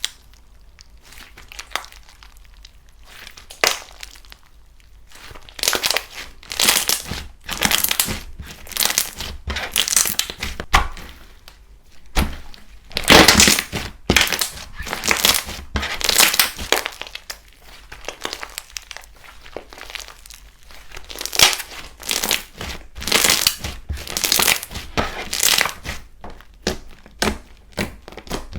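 Slime being squeezed and pressed by hand, giving irregular runs of crackling crunches in quick clusters. The loudest cluster comes a little before the middle.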